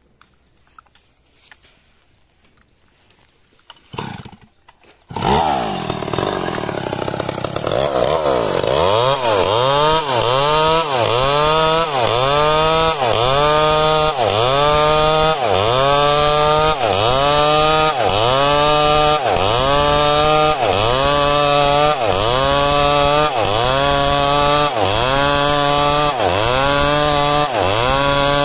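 A large two-stroke chainsaw comes in abruptly about five seconds in and revs up, then rip-cuts lengthwise down a squared timber. As it cuts, the engine pitch dips and recovers steadily, about once a second.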